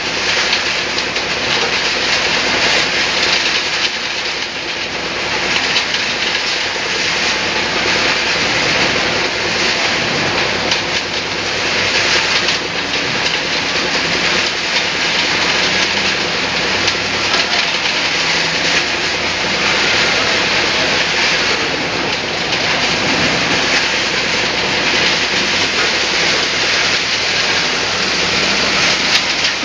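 ZSF30 concrete reclaimer (sand-and-stone separator) running steadily under load: a constant hissing, churning wash of water and wet aggregate over a low machinery hum.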